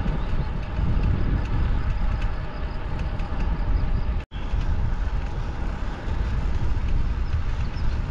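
Wind rushing over the microphone during a bicycle ride, a steady low rumble with no voice. The sound cuts out for an instant about four seconds in.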